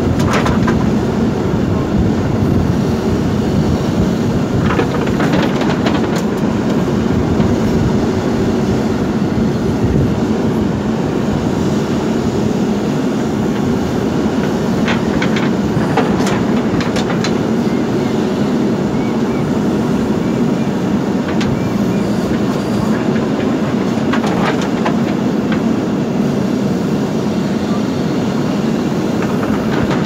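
JCB 3DX backhoe loader's diesel engine running steadily and loudly under hydraulic load as the backhoe digs and swings. Short clatters of stone and the steel bucket come a few times, about five, fifteen and twenty-four seconds in.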